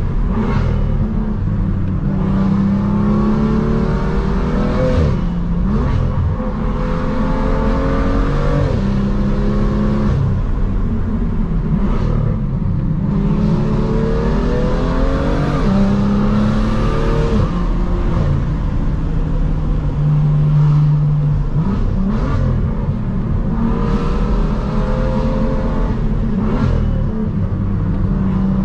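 BMW M2 F87's turbocharged inline-six through a valvetronic catback exhaust with catless downpipes, pulling through the gears: the pitch climbs and then drops sharply at each paddle upshift, several times over, with stretches of steady running between the pulls.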